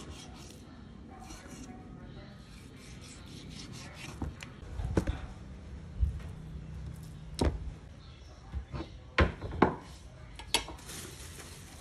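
A large knife slicing raw beef on a wooden chopping board, a quiet scraping at first. From about four seconds in comes a string of sharp knocks, roughly one a second, some close together.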